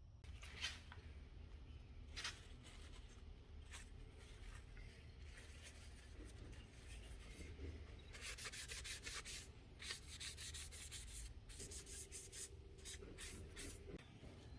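Faint hand sanding strokes on a restored antique miter-saw part. A few single strokes come first, then quicker back-and-forth strokes from about eight seconds in, stopping shortly before the end.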